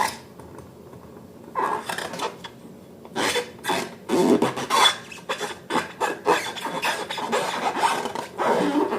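Slime being worked by hand: irregular wet rubbing and squishing strokes that start about a second and a half in and go on unevenly.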